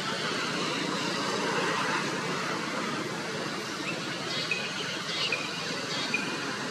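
Outdoor background: a steady rushing noise, with a row of short, high chirps starting about four seconds in.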